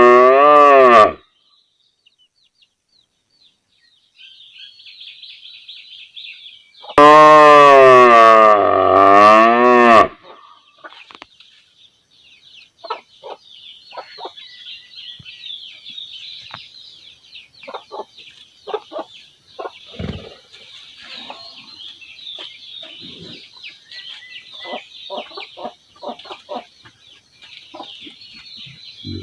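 Village cow mooing loudly: a long moo ends about a second in, and another long moo, dipping and rising in pitch, comes about seven seconds in. Between and after the moos, chickens cluck softly and small birds chirp.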